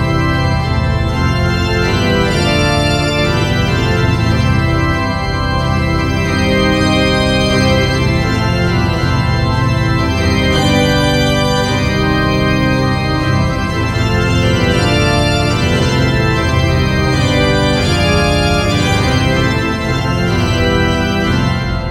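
Background music led by a sustained organ sound, with held chords that change every second or two.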